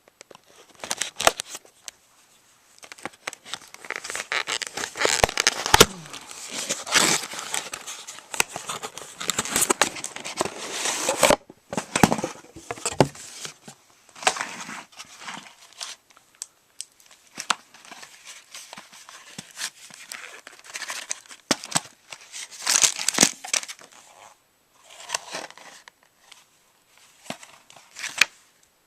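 Phone packaging being opened by hand: crinkling and tearing of wrapping, with sharp handling clicks, in irregular bursts. The rustling is densest in the first half, breaks off suddenly about eleven seconds in, then comes back in shorter bursts.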